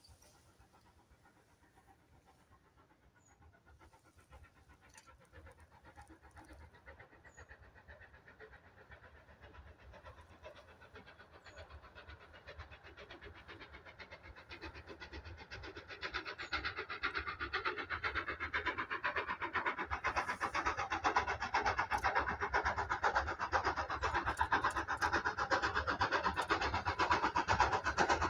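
Steam locomotive working hard as it approaches, a rapid, even chuffing from its exhaust that grows steadily from faint to loud.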